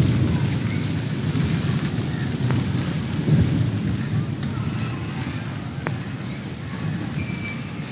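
Heavy rain pouring down: a dense, steady rush with a strong deep rumble and a few sharp drop hits, easing slightly near the end.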